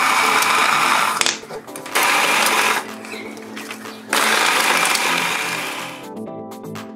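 Blender grinding nuts and sponge biscuits, run in three bursts: about two seconds, then a short one, then about two seconds that fades as the motor winds down. Background music runs underneath.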